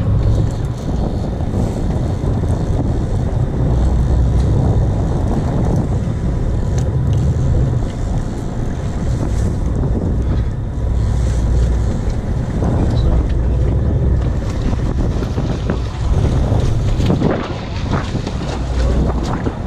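Fishing boat's engine running steadily under heavy wind buffeting on the microphone, with splashing near the end as a hooked fish thrashes at the surface beside the hull.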